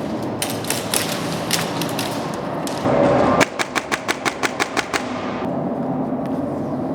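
Airsoft guns firing: scattered single shots, then a loud burst about three seconds in followed by a quick run of about ten shots, roughly seven a second.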